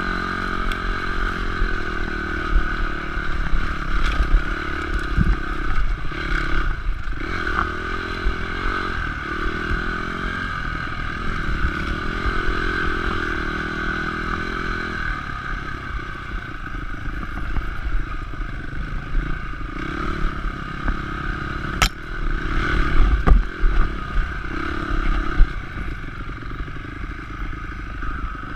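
Honda CRF250X dirt bike's single-cylinder four-stroke engine running at trail speed, its pitch rising and falling as the throttle is opened and eased off. The bike rattles over the rough track and brush scrapes along it, with two sharp knocks about three-quarters of the way through.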